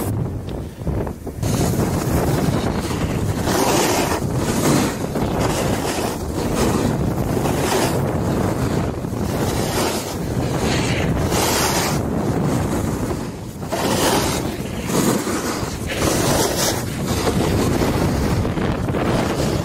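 Wind rushing over the microphone of a camera following a snowboarder down a piste, mixed with the board's edge scraping over packed snow; the rush swells and falls every second or so with the turns.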